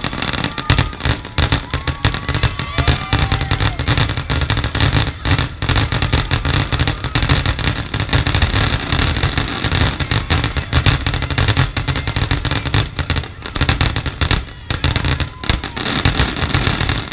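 Aerial fireworks display in a dense barrage: rapid, overlapping bangs and crackling bursts with no pause between them.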